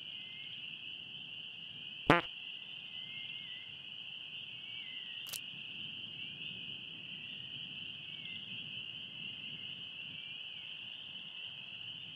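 Pond nature ambience: a steady, high insect chorus of chirping crickets, with one short, loud frog croak about two seconds in and a faint click about five seconds in.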